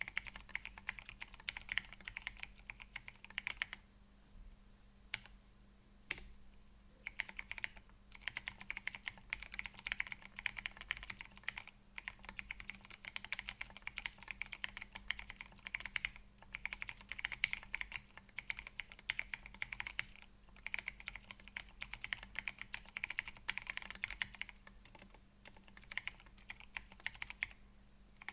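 Typing on a MechWild Orange Boy Ergo mechanical keyboard with lubed Gateron Brown tactile switches and MA-profile PBT keycaps, set on a desk mat. Fast runs of keystrokes come with brief pauses between them, and a longer pause a few seconds in is broken by a couple of single key presses.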